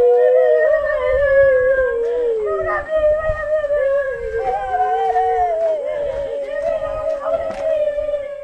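Several people wailing together: long, wavering cries that overlap and slowly fall in pitch.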